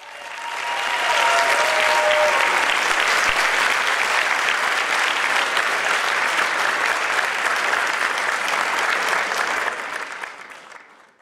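Audience applause breaking out as the music stops. It builds to steady, dense clapping within about a second, then fades out near the end.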